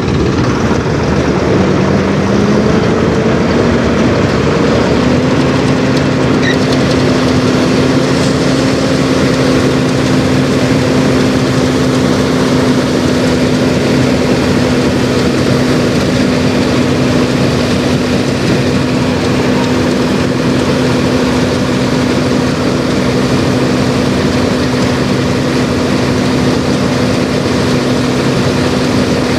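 Engine of a rice harvesting machine running under load. Its pitch climbs during the first few seconds, then holds steady.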